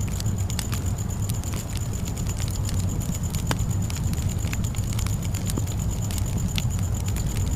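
Campfire burning: a steady low rumble of flames with scattered sharp crackles and pops from the burning wood. A thin, steady high-pitched tone runs underneath.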